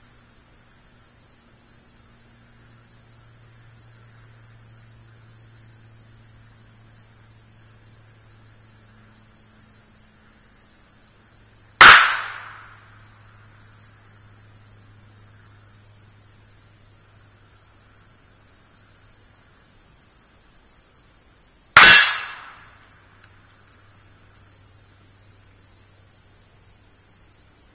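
Two pistol shots from a Rock Island Armory 1911 chambered in 9mm, about ten seconds apart, each a sharp crack with an echo that fades over about a second.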